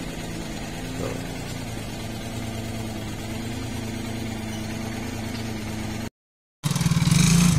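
Daihatsu Ceria's small three-cylinder carburetted engine idling steadily while warming up. About six seconds in the sound cuts out for a moment, and a louder engine follows.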